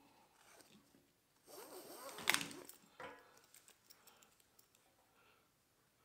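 Net float being pushed along a bungee cord by hand: faint rubbing and scraping, loudest about two seconds in with one sharp click, then a few light handling clicks.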